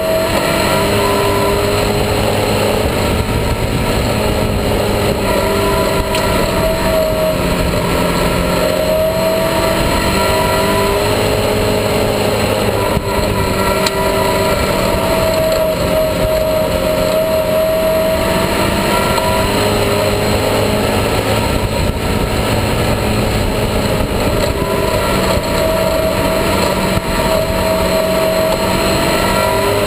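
Ministock speedway race car's engine heard from inside the cockpit, running hard and rising and falling in pitch over and over as the driver accelerates and eases off around the oval.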